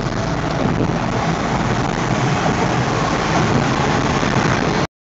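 Steady road and traffic noise heard inside a moving car on a highway, with a semi truck running close alongside. The noise cuts off suddenly near the end.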